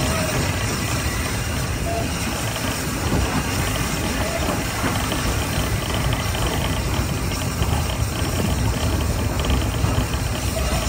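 LSWR T3 class 4-4-0 steam locomotive No. 563 working a passenger train under steam: a steady, dense mix of exhaust and running noise with a strong low rumble.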